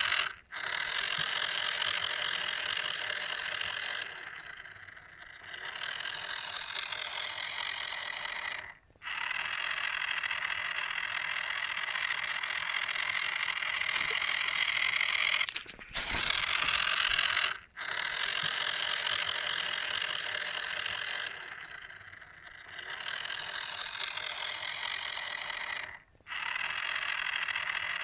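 Small electric motor running the boat's paddles through small gears, a steady high whirring that cuts out briefly a few times.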